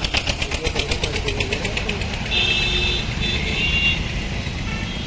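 Road traffic heard from a moving vehicle: a steady engine and road rumble, with a fast, even engine clatter that fades out about a second in. A high steady tone sounds from about two seconds in for a second and a half.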